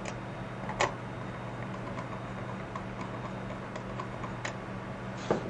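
A few light clicks of a screwdriver against the screws of a Stenner peristaltic pump's feed rate housing cover as they are retightened, the clearest about a second in and two more near the end, over a faint steady hum.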